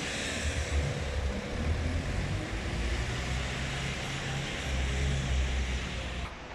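Distant road traffic on an almost empty city street: a steady hiss with an uneven low rumble.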